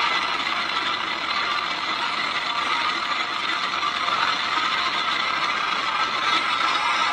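Motorcycle riding at steady road speed: an even rush of wind and road noise over the bike-mounted camera, with the engine running underneath.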